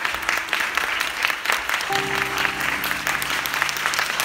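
Theatre audience applauding. About two seconds in, a sustained chord of music begins and holds under the clapping.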